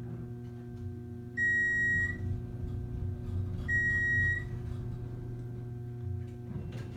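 Two short electronic beeps from the elevator car's signal, about two seconds apart, over the steady hum of the geared traction elevator running.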